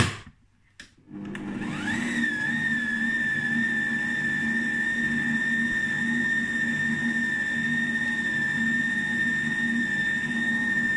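Kenwood Chef stand mixer with a balloon whisk starting up about a second in, its motor whine rising in pitch and then running steady at low speed as it beats flour into the whipped egg batter.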